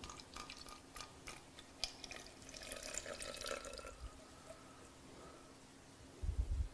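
Distilled water being poured into a pint bottle: faint clicks and drips, then a soft trickle for a second or two. A low thump comes near the end.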